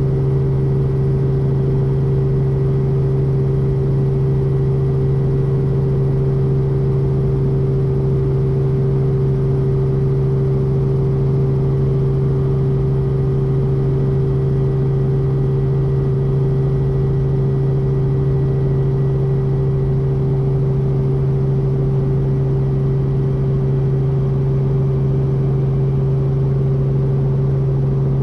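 Robinson R44 helicopter's six-cylinder Lycoming piston engine running on the ground before lift-off, a loud, unchanging drone.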